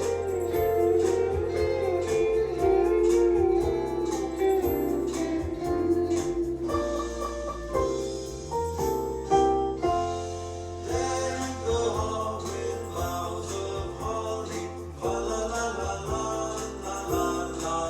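Music: a Christmas carol with singing and guitar.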